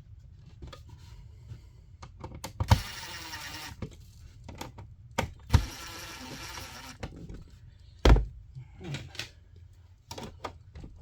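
Knocks and clicks from working an electrical outlet into its wall box, with two short runs of a small motorised hand tool, each lasting about a second, and three sharp thumps.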